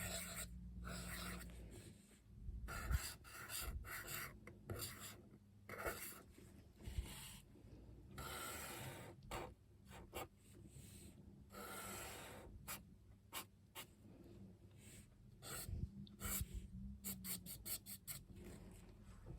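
Paintbrush brushing across watercolour paper in many quick, short strokes, with a few longer sweeps, as when flicking in little grass blades.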